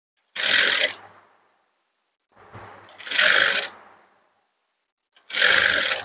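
Electric sewing machine stitching in three short runs of under a second each, stopping between them, as piping is sewn around a curved blouse edge.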